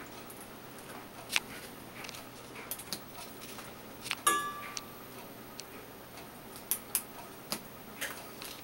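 Scattered sharp clicks of steel forceps working while porcupine quills are pulled from a dog's muzzle, with one short ringing metal clink about four seconds in.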